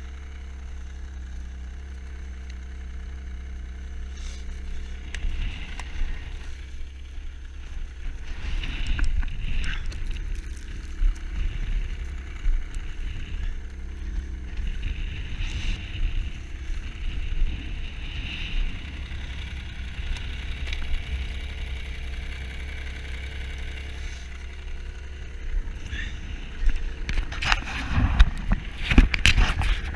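Snowmobile engine running steadily under way, with a constant low hum and rushing noise. A cluster of loud knocks and jolts comes near the end.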